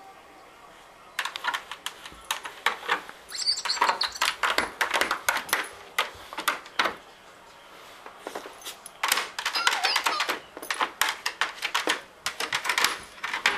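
Rapid clattering and tapping of hard plastic, with a few faint high squeaks: a Zhu Zhu Pets robot hamster toy scurrying around inside a plastic laundry basket. The clatter comes in two runs with a pause of about two seconds between them.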